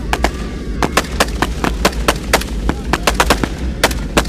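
Assault rifle fire: a rapid, irregular string of sharp shots, several a second, over a steady low rumble.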